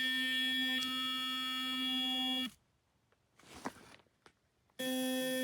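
GuruNanda Cruiser sonic toothbrush running with a steady high-pitched buzz, switched off about two and a half seconds in and switched on again near the end, with a few faint handling sounds in the gap.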